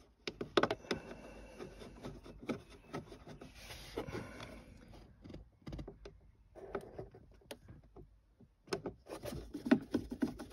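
Small clicks, taps and rubbing of a screwdriver driving a small Torx screw into a Mercedes SL R230's plastic centre console trim panel, with hands handling the panel. The sharpest clicks come in the first second.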